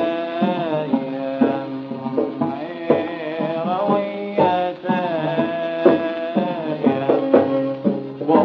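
Old, narrow-band recording of a Gulf sawt song in the sawt arabi style: a held, bending melody line over sharp, repeated hand-drum strokes.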